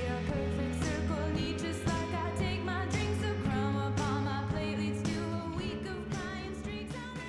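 Background music with singing over a steady beat, a pop song with bass and drums.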